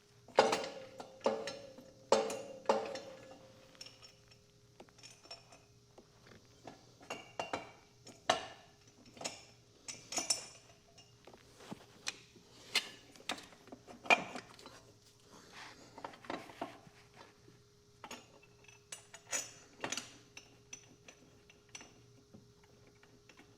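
Hand tools clinking and knocking against metal at irregular intervals as bolts are worked on an engine mount. The loudest clanks come in the first few seconds and ring briefly.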